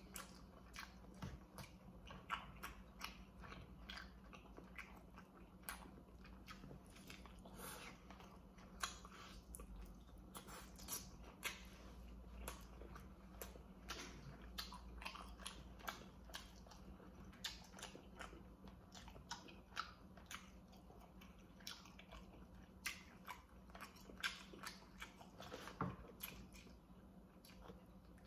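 Baked chicken drumstick being bitten and chewed, faint, with many small irregular mouth clicks.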